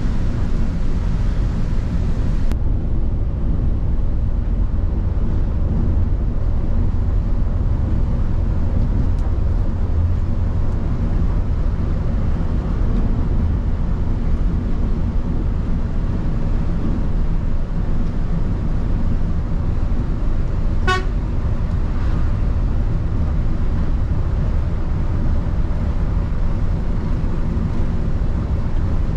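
Steady low drone of a Volvo B8R bus's rear-mounted six-cylinder diesel engine and road noise at cruising speed, heard from inside the cabin. About two-thirds of the way through there is one short horn toot.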